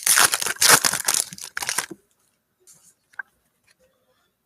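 Wrapper of a football trading-card pack being torn open and crinkled in the hands, a dense crackling for about two seconds, followed by a few faint ticks.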